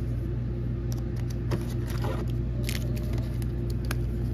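Hands handling a foil Pokémon booster pack: scattered light clicks and a short crinkle about two seconds in, over a steady low hum.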